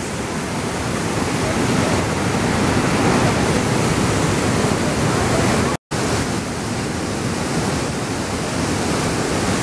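The American Falls at Niagara heard close at its brink, water plunging onto rocks in a steady, dense rush of noise. The sound drops out for an instant about six seconds in.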